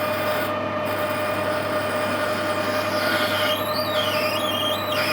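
Metal lathe running with a steady hum while a tool cuts into a 1/2-inch brass bar, boring the hole for a pipe. A wavering high squeal from the cut comes in about three seconds in.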